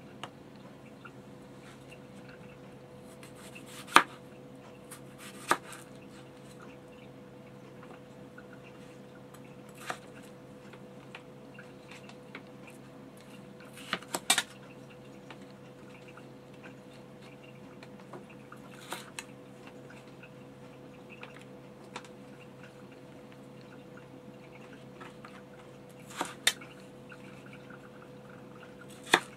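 Kitchen knife slicing through raw yellow potatoes and knocking down onto a cutting board: sharp, separate knocks every few seconds, the loudest about four seconds in, a couple in quick succession near the middle.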